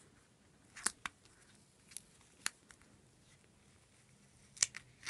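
Paper sticker being peeled up and pressed back onto a planner page: a scatter of small sharp clicks and crackles, the loudest near the end.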